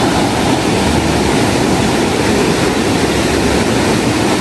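A fast mountain river rushing through boulder-strewn rapids: a loud, steady roar of churning white water.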